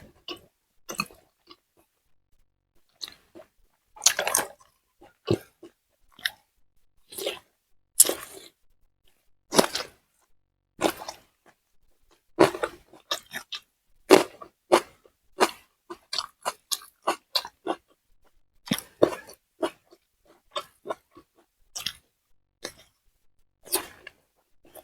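Close-up chewing and crunching of food: an irregular run of short, crisp crunches and mouth smacks, several a second at times.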